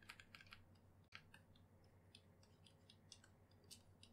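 Faint, irregular light clicks and taps from a drawing-tablet pen and computer keyboard keys, several a second, against near-silent room tone.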